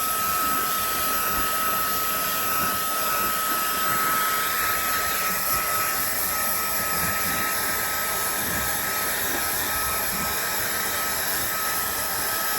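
Handheld hair dryer blowing steadily, a constant rush of air with a thin high whine held at one pitch.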